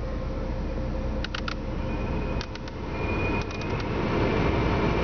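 A Lada Priora's Panasonic climate-control unit running, with a steady low blowing hum. A faint thin whistle comes and goes through the middle, muffled by Splen sound-deadening glued over it. A few quick clicks are heard about three times.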